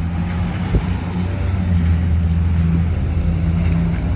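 A car running with a steady low engine and road hum, and a single brief knock a little under a second in.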